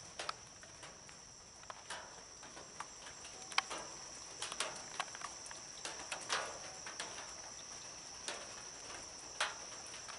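A steady high-pitched chorus of night insects such as crickets, with scattered irregular faint clicks and taps over it.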